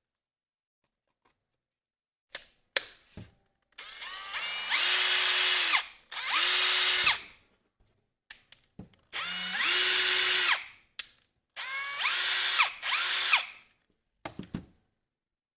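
Cordless drill motor, run off a homemade 16.8V pack of four 18650 lithium-ion cells, triggered in five short runs of about one to two seconds. Each run rises in pitch to a steady whine and winds down on release, with a few clicks between runs: a test that the drill works on the new pack.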